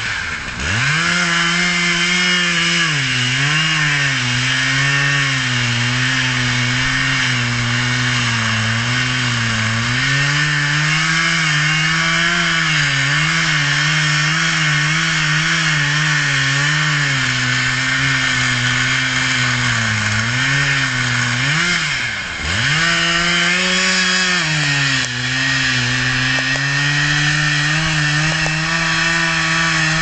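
Husqvarna 3120 two-stroke chainsaw running at high revs while cutting into a large tree trunk. Its engine note wavers under the load and dips sharply twice, just after the start and about two-thirds of the way through, each time climbing straight back.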